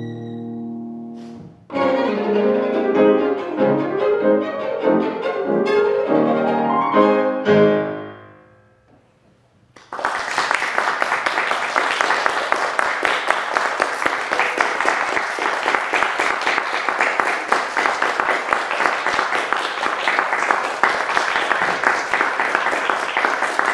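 Violin and grand piano play the closing bars of a piece: a held chord, then a quick passage of notes that ends about eight seconds in. After a brief silence, applause starts about ten seconds in and continues steadily.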